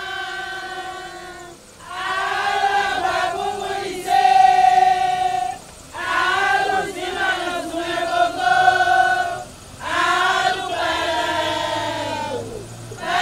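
Adjogan choir of women singing a traditional chant together, in four phrases with brief breaks between them.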